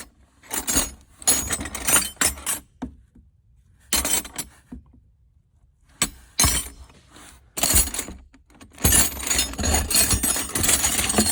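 Loose metal wrenches clinking and clanking against each other as a box of them is rummaged through by hand. It comes in bursts, with a quiet pause of a couple of seconds near the middle.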